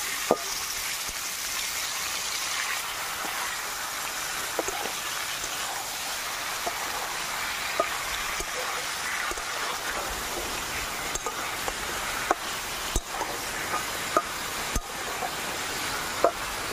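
Raw chicken pieces sizzling as they fry in hot oil in a steel kadai, the hiss a little brighter in the first couple of seconds after the meat goes in. A spatula stirs through it, knocking sharply against the pan now and then.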